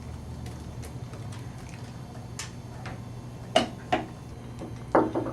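Light clicks and taps as the two front cover screws come out and the Stenner pump's plastic front cover is handled, with a few sharper knocks in the second half over a low steady hum.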